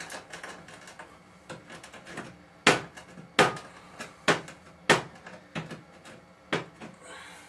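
Dried garlic chips being crushed with a hand tool: a run of sharp, irregular knocks, the loudest coming in a cluster from about two and a half to five seconds in, with one more near the end.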